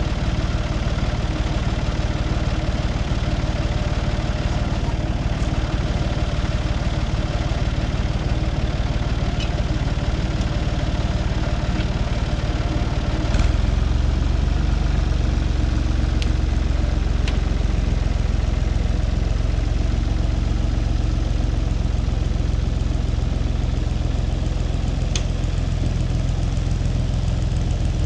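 Tractor engine running steadily. About halfway through there is a sharp click, and after it the engine's low note is louder and heavier.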